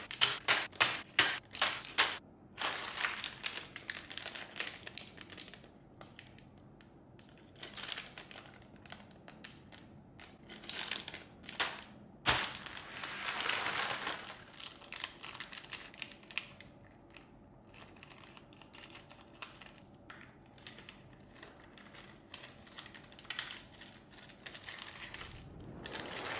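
Packaging being handled and opened: crinkling and rustling that comes and goes, louder for a couple of seconds about twelve seconds in. A quick, even run of clicks sounds in the first two seconds.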